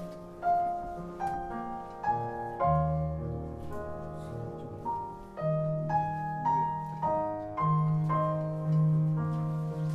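Solo piano music: a slow piece of single melody notes over held bass notes, played back over MBL omnidirectional loudspeakers in a demonstration room.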